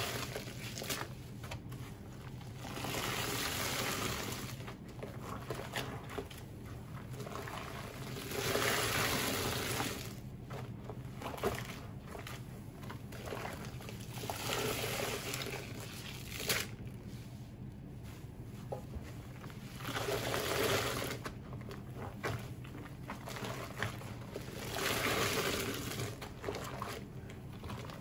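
Thick, watery paste being squeezed and worked. The wet squishing and trickling rises and falls in swells of a second or two every few seconds.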